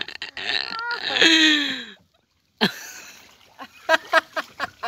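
A woman's voice: a drawn-out exclamation lasting about two seconds that slides down in pitch, then a brief dead gap, and short bursts of laughter near the end.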